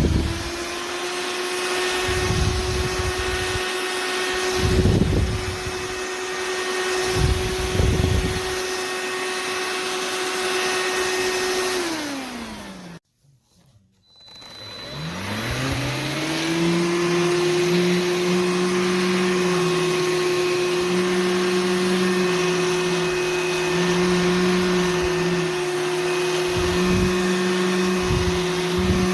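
Cordless handheld vacuum spinning up and running with a steady high motor whine and a few low bumps. About twelve seconds in it winds down and stops. After a moment's silence it spins up again and runs steady, now with a second, lower wavering hum under the whine.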